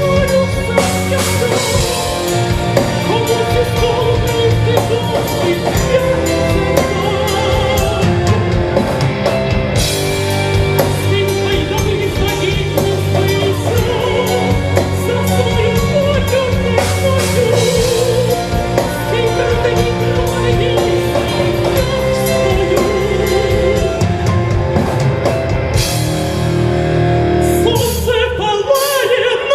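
Rock band playing live: a singer's voice over drum kit and full band, loud and continuous, with the low end dropping out briefly about two seconds before the end before the band comes back in.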